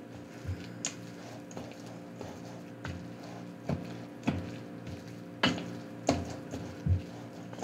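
A metal wire whisk mixing bread dough in a stainless steel bowl, with irregular clicks and knocks of the wires against the bowl. The knocks come more often and louder in the second half.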